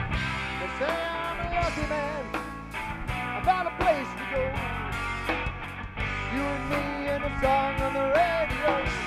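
Live rock band playing an instrumental section: an electric guitar plays a lead line with bent, gliding notes over drums and bass.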